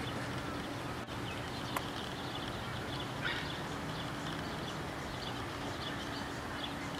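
Outdoor evening ambience: small birds chirping again and again over a steady background hiss and a faint low hum, with one short click.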